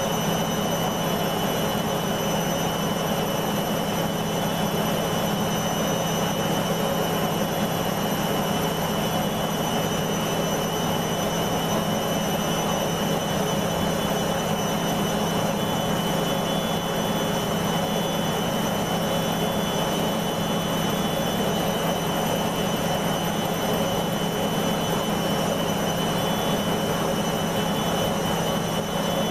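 Beko washing machine spinning at a steady speed, a constant motor hum and high whine over the rush of the drum, with no change in pitch or loudness. The drum is spinning with a heavy suds lock left over from the rinse.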